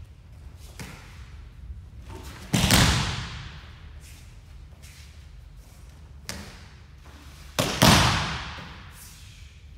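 Two loud slaps of aikido breakfalls on tatami mats as the thrown partner lands: one about two and a half seconds in and a double hit near the end. Each rings out for about a second in the large hall, and a few softer knocks of feet and bodies on the mats fall between them.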